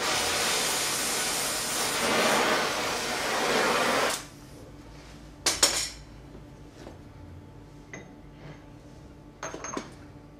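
A loud, steady rushing hiss for about four seconds that cuts off suddenly, then a sharp metallic clink about a second and a half later and a few lighter clinks near the end.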